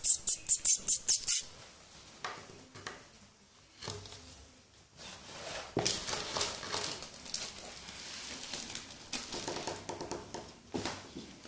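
Ocicat kittens at play with a fabric play tunnel. A quick run of sharp rustles comes in the first second or so, then softer scratching and pattering of paws on a wooden floor.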